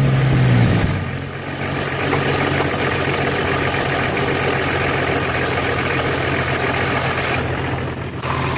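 Jeep Cherokee XJ's 4.0-litre inline-six idling just after start-up. It runs at a slightly higher speed for about the first second, then settles to a steady idle.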